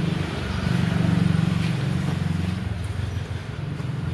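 A motor vehicle's engine running with a low, steady hum that swells for about two seconds in the middle.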